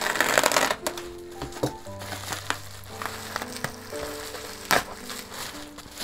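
A plastic bubble mailer being opened: a loud ripping of the plastic in the first second, then scattered crinkles and taps as the mailer is handled. Soft piano music plays underneath.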